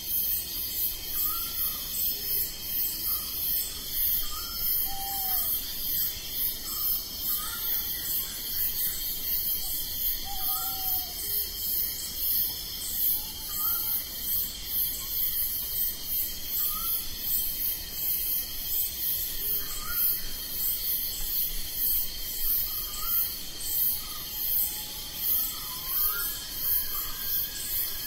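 Night insect chorus of crickets: several steady high trills layered together, with a regular pulsing rhythm on top. Short chirped call notes from another small animal repeat every second or two through it.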